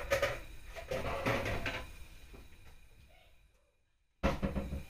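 Knocks and clattering of an oven's door and metal rack, fading out. The sound cuts to dead silence, and a new burst of noise starts about four seconds in.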